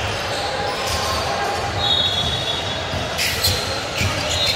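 Basketball game in a large echoing indoor hall: a ball bouncing on the hardwood court, two brief high sneaker squeaks, and a steady background of crowd voices.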